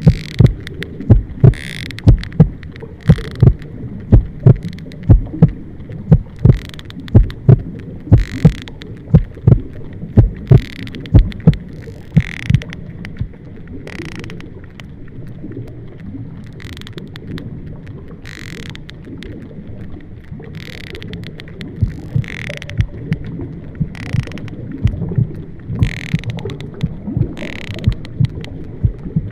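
Layered, designed horror sound: sharp low thumps in a heartbeat-like rhythm, about two a second, over a steady low rumble, with short hissing swells every second or two. The thumps fall away about halfway through and return near the end.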